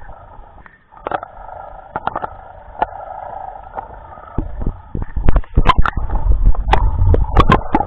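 Underwater recording: a boat engine's steady muffled drone heard through the water, with scattered clicks and knocks on the camera. From about halfway in, loud low rumbling and sharp splashy crackles take over as the camera moves up to the surface.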